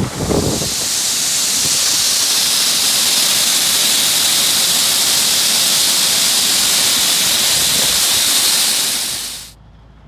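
Shelled corn pouring in a steady stream down a metal hopper, a loud, even hiss of running grain that cuts off suddenly near the end.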